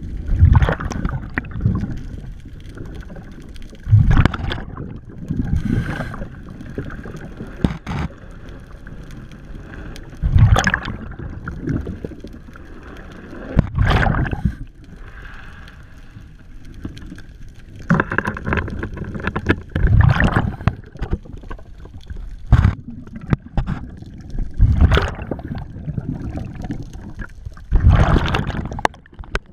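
A diver breathing underwater through a regulator: exhaled bubbles burst and gurgle past the microphone about every three to four seconds, with quieter murky water noise between.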